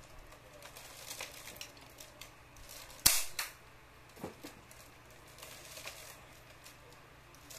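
Home-built LEGO blaster firing once about three seconds in: a sharp snap, followed at once by a softer knock. Light plastic clicks and rattles from the bricks being handled and loaded come before and after.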